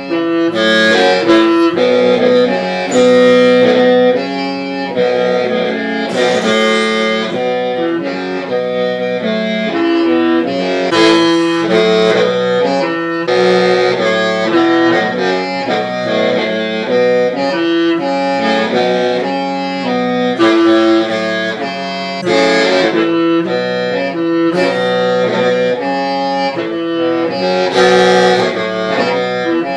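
Hmong qeej, a bamboo free-reed mouth organ, playing a melody of shifting several-note chords over a steady low drone.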